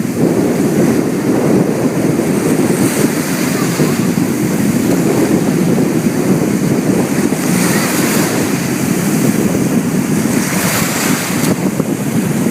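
Rough sea: waves washing and breaking, with wind buffeting the microphone as a loud, continuous rumble. Brief hissing swells come in a few times as waves wash over.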